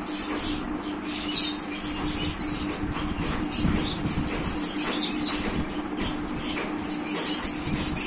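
Black colour pencil scratching across paper in quick, irregular short strokes, close up, over a faint steady hum.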